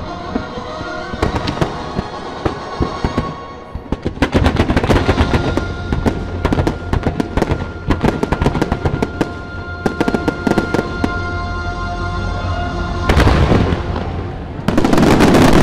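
Fireworks display: shells bursting and crackling in quick succession over the show's music. The barrage thickens about four seconds in and swells to a dense, loud volley near the end.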